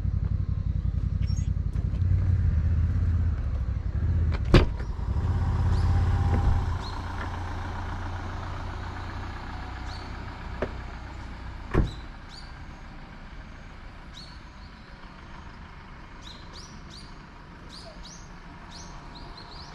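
Camper van's engine running close by, with a door shutting with a sharp bang about four and a half seconds in; after about six seconds the engine falls much quieter as the camper drives away. Another sharp knock comes about twelve seconds in, and a few faint bird chirps near the end.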